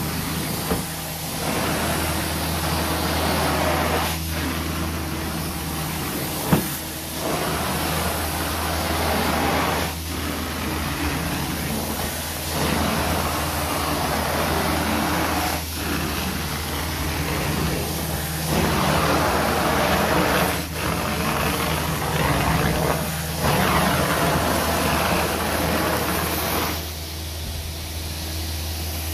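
Carpet-cleaning extraction wand drawn across wet carpet, its vacuum running with a steady hum under a rush of sucked air and water that swells with each stroke, about every two to three seconds. A sharp click about a third of the way in, and the rush drops back near the end.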